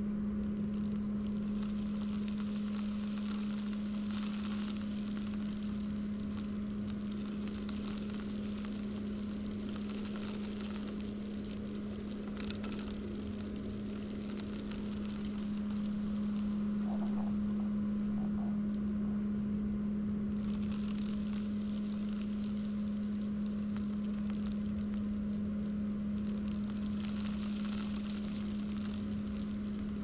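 Vacuum cleaner running with a steady hum while its open hose nozzle is drawn slowly over thick carpet, sucking up carpet powder with a fine crackling. The crackle thins out in the middle and picks up again after about twenty seconds.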